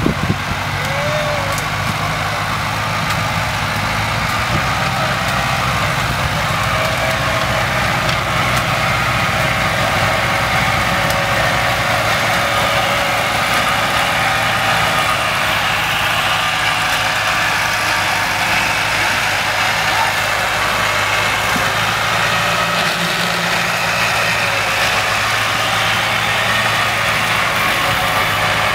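Engine of a sugarcane grab loader running steadily while it works, a continuous low engine note with a steady higher whine above it.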